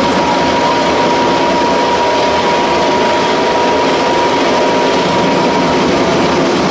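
Animal feed pellet mill running steadily while being fed mash: a loud, dense, unbroken machine noise with a steady high whine through it.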